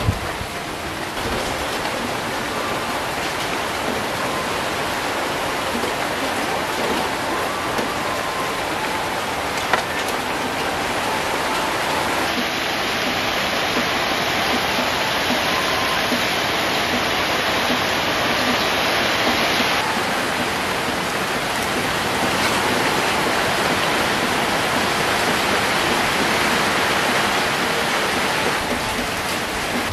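Eggplants grilling on a wire mesh over a charcoal fire, giving a steady sizzling hiss, with a couple of sharp clicks.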